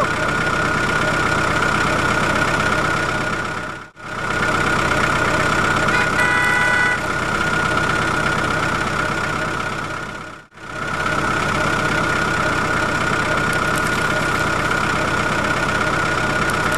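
Steady engine running sound for a toy tractor, cutting out briefly twice, about four seconds in and again about ten and a half seconds in. A short pitched tone comes in around six seconds in.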